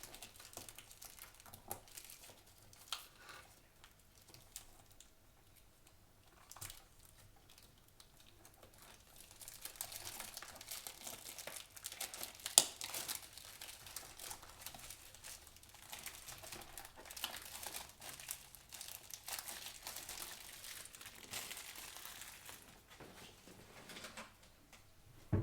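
Packaging of a sealed trading-card box being torn and crinkled as the box is opened: a few light handling clicks at first, then a long stretch of crinkling and tearing with one sharp snap in the middle.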